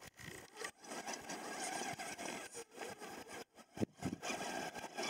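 RC rock crawler climbing a loose, stony slope: its small electric motor and gears whirring in stop-start spurts as the tyres scrabble and crunch over gravel, with a few sharp clicks of stones.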